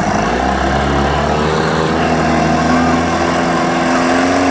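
An 8 hp outboard motor pushing the boat along, running steadily with its pitch slowly rising as it picks up speed.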